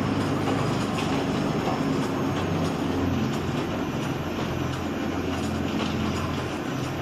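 Z-type bucket elevator running: a steady mechanical drone with a low hum and a few faint clicks.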